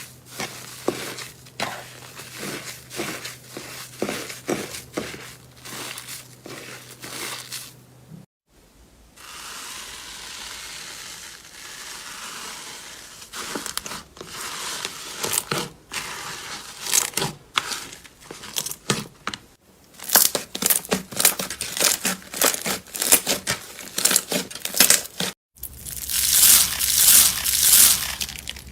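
Slime being squeezed, pressed and stretched by hand, giving dense runs of short crackles and pops. Several separate clips follow one another, with brief breaks between them.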